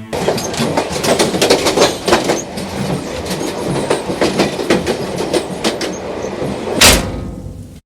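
A dense, irregular clatter of clicks and rattles over a steady rumble, ending in one loud hit about seven seconds in that rings out and fades.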